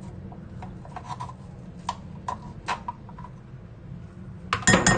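A wooden utensil scraping and prodding inside a tin of canned ham, breaking the ham into small pieces: scattered light clicks and taps, then a burst of louder clattering knocks near the end.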